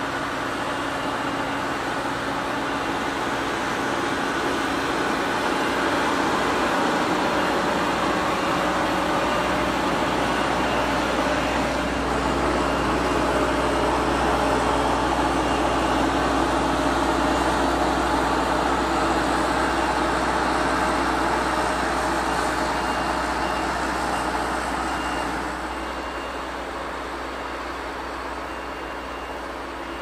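Engine of a Merlo MultiFarmer 40.9CS telehandler running steadily under load as it pulls a four-furrow plough through the soil. It grows louder over the first few seconds, then drops away about 25 seconds in.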